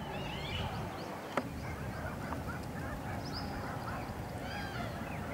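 Birds chirping and calling outdoors, many short overlapping calls, with a single sharp click about a second and a half in.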